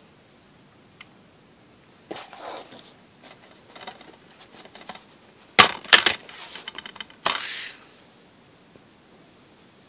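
Hard plastic DVD case being handled and opened: rustling, then several sharp plastic clicks and snaps a little past halfway, the last followed by a short rasp.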